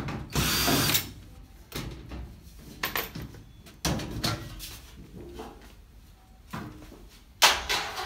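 Cordless drill-driver spinning once for under a second, backing a screw out of a top-load washing machine's back cover. Scattered knocks and clatters follow as the cover and tools are handled, with a sharp knock near the end the loudest.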